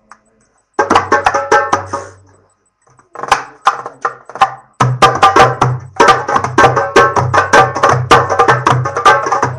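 Fast hand-drum rhythm, tarabuka (darbuka) style, in music with a bass line. It starts about a second in, breaks off briefly, and comes back fuller with the bass about five seconds in.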